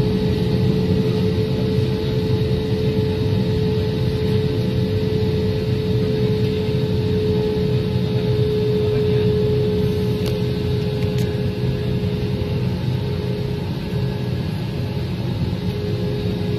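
Airliner engines and cabin noise heard from inside the passenger cabin while the plane is on the ground before takeoff: a steady high hum over a constant low rumble.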